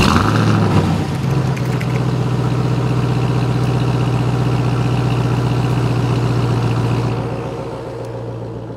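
Ram TRX's supercharged 6.2-litre V8 firing up with a short rev that settles within a second or so into a steady idle, which fades out near the end.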